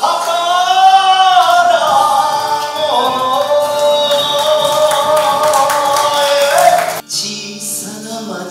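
Male singer holding a long, wavering sung note over a kayōkyoku backing track. About seven seconds in, it breaks off abruptly into a quieter instrumental song intro.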